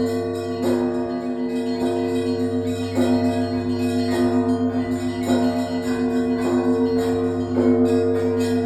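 Russian Orthodox church bells ringing a peal from a large bell tower. Repeated strokes come every half second to a second over a steady, lingering hum from the larger bells.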